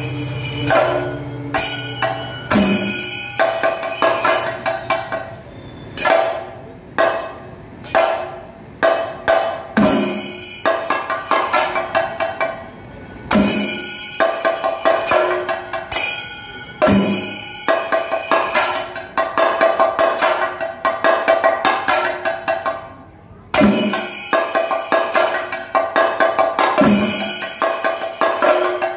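Thayambaka ensemble of chenda drums played with sticks: a fast stream of stick strokes on the lead chenda, with heavy accented strokes from the accompanying chendas roughly every three to four seconds. Ilathalam hand cymbals keep up a steady metallic ringing underneath.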